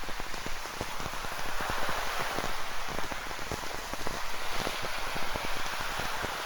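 Rain falling on a seashore, with many close raindrops striking in quick irregular succession over a steady rushing wash of ocean surf.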